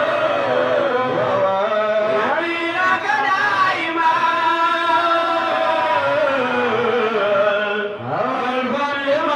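A man chanting a religious song into a handheld microphone, holding long notes that slide up and down in pitch.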